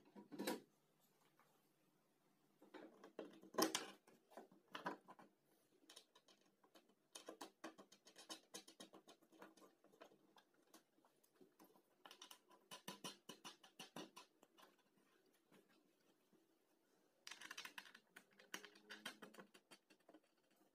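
Faint clicks, taps and scrapes of hand work on a homemade wooden saw table: a circular saw being set in place and small wooden clamp blocks with bolts fitted and turned by hand. There are two louder knocks, one right at the start and one about four seconds in.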